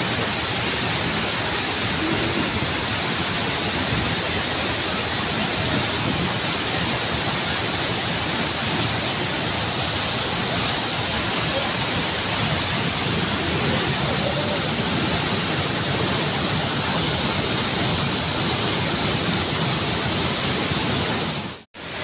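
A powerful waterfall and its fast river current rushing close by, a loud, steady noise of falling and churning water. The sound cuts out for an instant near the end.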